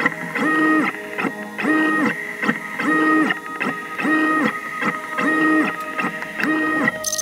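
3D printer's stepper motors whining as the print head moves back and forth while printing. There are six passes about 1.2 s apart, each rising into a steady pitched whine and falling away again.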